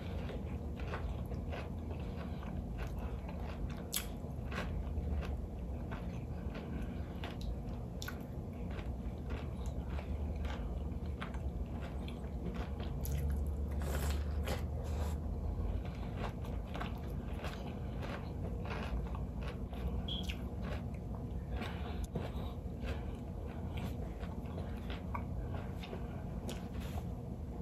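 Close-miked biting and chewing of fried catfish, with irregular crisp crunches and wet mouth sounds.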